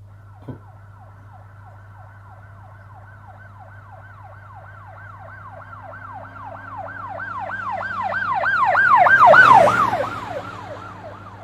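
Police car siren on a yelp pattern, rising and falling about three to four times a second, growing louder as it approaches, loudest about nine seconds in, then fading as it drives past.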